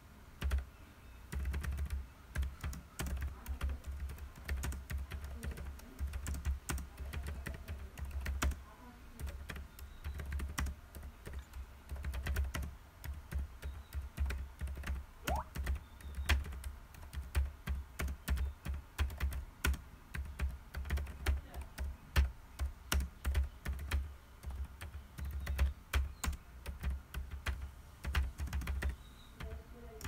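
Typing on a computer keyboard: a continuous, irregular run of key clicks in quick bursts with short pauses, each stroke carrying a dull low thud.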